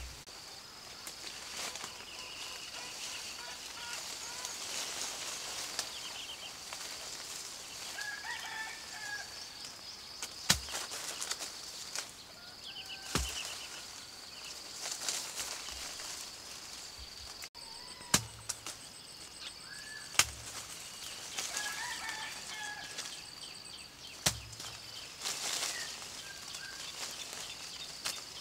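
Leaves and branches rustling, with several sharp snaps as sapodilla fruit are pulled off by hand. Birds chirp intermittently, and a steady high tone runs in the background.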